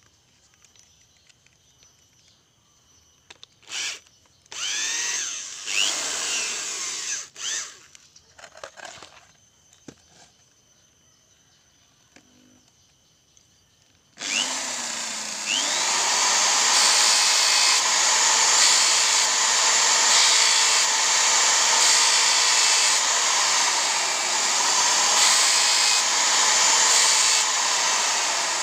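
Corded electric drill spinning a disc in its chuck: it is triggered in a few short bursts, then about fourteen seconds in it is switched on and runs steadily at full speed, beginning to wind down at the very end.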